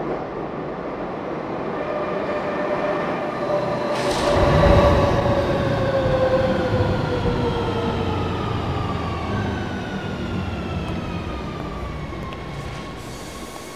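Electric underground train pulling into a station: its motor whine falls slowly in pitch as it slows, over a rumble that swells about five seconds in and then fades.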